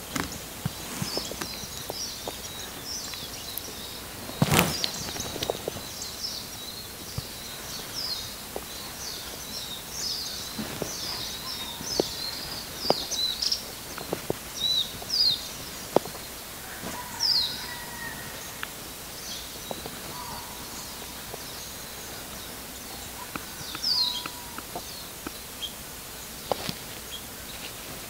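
Small birds chirping and twittering over a steady outdoor background hiss, with a single sharp knock about four and a half seconds in and a few fainter clicks.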